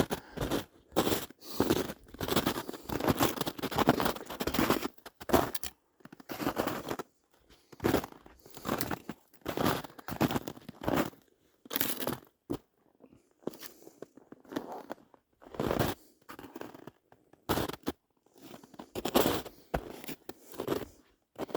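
Footsteps crunching through swamp undergrowth, with irregular rustling crunches, dense at first and then about one a second.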